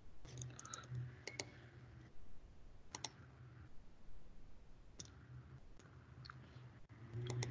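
Computer mouse clicks as web pages are navigated: scattered single and double clicks, with a quick run of them near the start, over a faint low hum.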